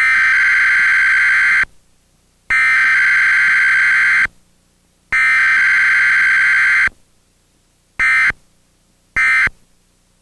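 Emergency Alert System digital data bursts during a broadcast EAS test. Three long bursts of harsh, buzzing data tones about a second apart (the SAME header) are followed by two short bursts (the end-of-message code).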